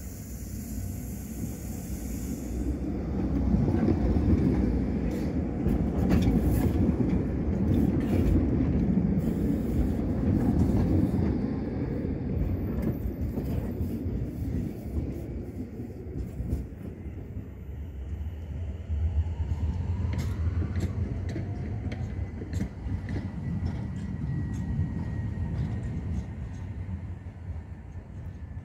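Articulated electric tram moving off and running past: a low rumble that builds over the first few seconds, stays strong until about ten seconds in and then eases, with scattered clicks of the wheels over rail joints. About two-thirds of the way through a faint rising motor whine comes in as tram traffic on the loop moves on.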